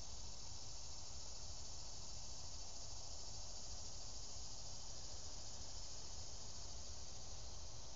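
Steady outdoor ambience: an even, high insect chorus with a low rumble beneath, unchanging throughout.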